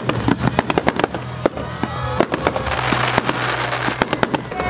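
Fireworks going off: a rapid series of sharp bangs from bursting shells and launches, with a stretch of dense crackling a little past the middle as glittering stars burn out.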